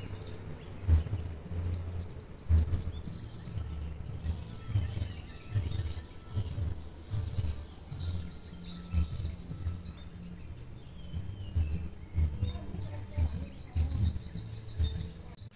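Village outdoor ambience: a steady high insect drone with a few faint bird chirps. Over it run irregular low rumbling pulses on the microphone, the loudest sound.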